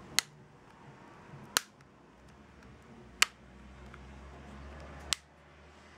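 Snap-on back cover of a Fly IQ444 Quattro Diamond 2 smartphone pressed onto the phone, its clips clicking into place at the corners: four sharp clicks, roughly one every second and a half.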